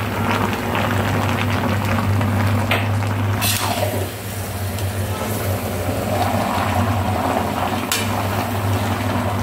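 Metal spatula stirring and tossing spiced mixed vegetables in a large black wok, with a few sharp scrapes about three seconds in and again near the end, over a steady low hum and an even hiss of cooking.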